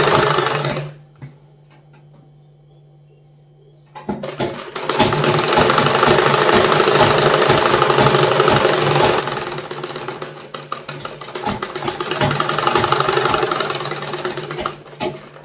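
Sewing machine stitching a seam through a nighty's cotton fabric. It stops about a second in, starts again about four seconds in and runs fast, then goes slower and uneven before stopping near the end with a few clicks.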